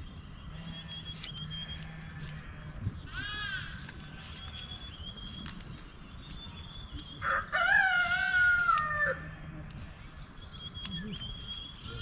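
A rooster crows once, a loud call of nearly two seconds about seven seconds in. A shorter rising-and-falling animal call comes a few seconds earlier.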